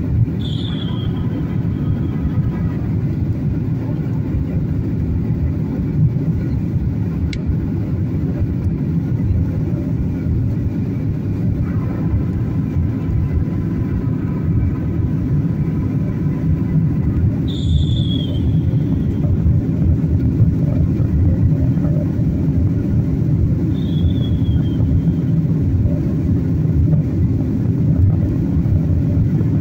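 Jet airliner cabin noise: a steady, loud low rumble of the engines and the airflow over the fuselage. Three brief higher sounds falling in pitch cut through it: one near the start, one about two-thirds of the way in, and a fainter one a few seconds later.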